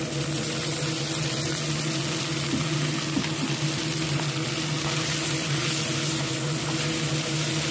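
Rice noodles and sauce sizzling in a hot frying pan over a gas flame: a steady hiss over a constant low mechanical hum, with a few faint ticks.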